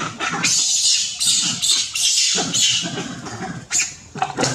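Monkeys screeching, a string of short, harsh, high-pitched cries one after another.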